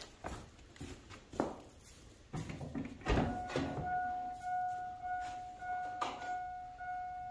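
Footsteps and small knocks, then a thunk about three seconds in as the GMC pickup's driver door is opened. A steady high warning tone from the truck follows and keeps sounding.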